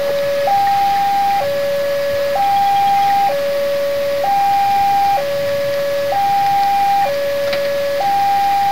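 Railway level-crossing warning alarm: an electronic two-tone signal stepping between a lower and a higher pitch, each held just under a second, repeating evenly. It signals that a train is approaching and the crossing is closed.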